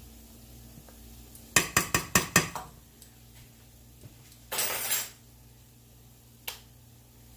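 A metal measuring spoon clinking against a stainless steel skillet: about six quick clinks in a row, about a second and a half in, as the ground ginger is tapped off into the pan. Then a brief noise about half a second long, and a single light click near the end.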